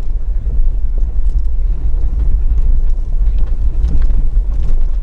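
Steady low rumble of a vehicle driving on a rough dirt road, heard from inside the cab, with light knocks and rattles from the bumpy track.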